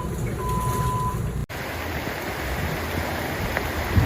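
Steady rushing noise of floodwater and traffic on a flooded city street. A short, steady high beep sounds near the start, and the sound cuts out abruptly about a second and a half in before the rushing resumes.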